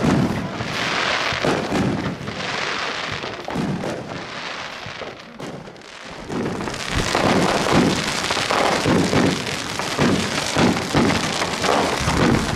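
Fireworks going off: a bang at the start, then the crackling and hissing of bursting rockets, dropping off briefly about halfway, followed by a dense run of bangs and crackles from many fireworks at once.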